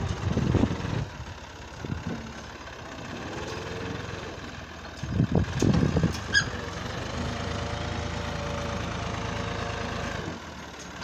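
A tractor's diesel engine runs steadily under load as it pulls a trolley heaped with soil up a dirt slope. There are a few louder low bursts about five to six seconds in.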